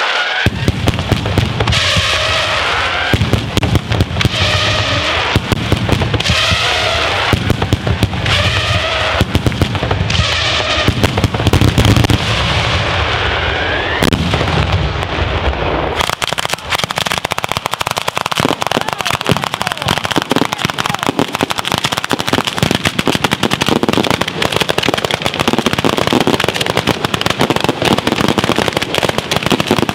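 Ground fireworks battery firing. In the first half, bursts and rising whistles repeat over a steady rumble. About halfway through it changes to a dense, continuous crackle of rapid firecracker bangs.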